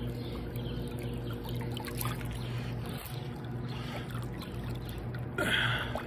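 Pool water trickling and splashing at the return inlet, over a steady low machine hum. A louder, brief rush of water comes near the end.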